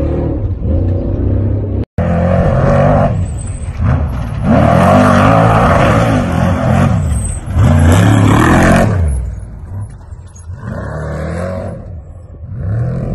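Off-road race truck engine revving hard, its pitch rising and falling several times as it climbs. The engine is loudest in the middle and quieter after about nine seconds, with a split-second gap near two seconds in.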